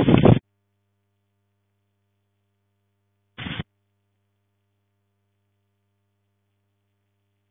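Wind and heavy rain on the microphone that cut off abruptly about half a second in, leaving near silence with only a faint electrical hum; a brief burst of the same storm noise returns about three and a half seconds in. The sudden cuts are the audio dropping out, not the storm stopping.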